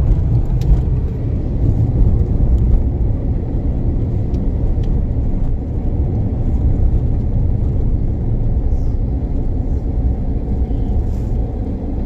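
Steady low rumble of a car on the move, engine and tyre noise heard from inside the cabin.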